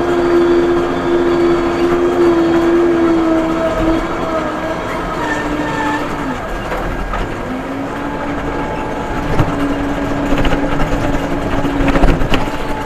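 Case 580M backhoe working under load, its engine and hydraulics giving a steady whine that drops in pitch about four seconds in, fades briefly, then returns. A few sharp metallic knocks near the end.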